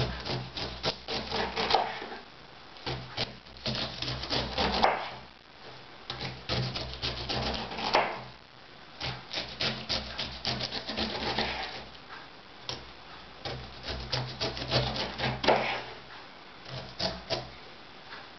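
Kitchen knife slicing down through pineapple rind in repeated strokes, the blade rasping and crunching through the tough, scaly peel, with light clicks of the knife against a wooden cutting board.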